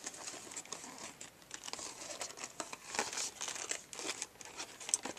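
Cardboard-and-plastic blister pack of a Beyblade toy crinkling and crackling as hands work at prying it open, in irregular crackles with no steady rhythm.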